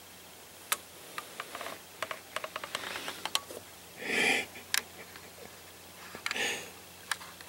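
Opossum chewing dry cat food: a run of irregular sharp crunches and clicks, thinning out after about three seconds. Two short breathy rushes of air come in, one around the middle and one near the end.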